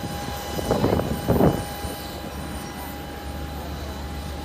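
Steady whine and rumble of aircraft engines running, with two short louder sounds about a second in.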